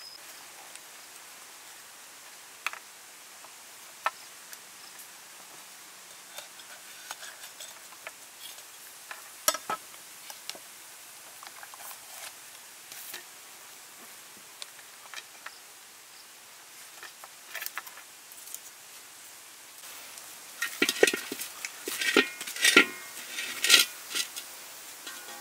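Quiet handling of a raw, marinated duck on a wooden board, with scattered small taps and clicks. Near the end comes a run of louder metal clanks with a brief ring, as a wok is set down and shifted on its stand over the fire.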